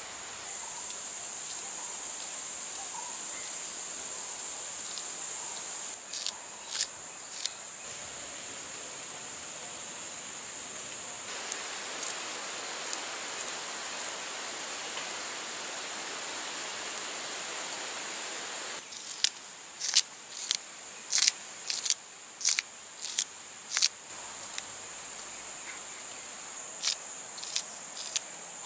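Steady high chirring of insects throughout. Crisp clicks come in a few groups, a few about six seconds in, a rapid run of them a little before the twenty-second mark, and a few more near the end, as fresh lasia stalks are cut into short pieces by hand.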